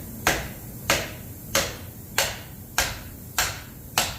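Hammer striking a seized distributor in a Ford 429 big-block engine, seven sharp blows at a steady pace of a little under two a second, as it is beaten out of the block.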